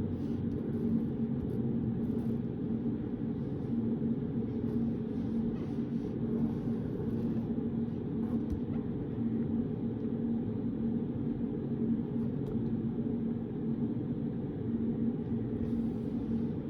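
Steady low room hum with a constant tone in it, the white noise of a study room, with faint scratches of writing now and then.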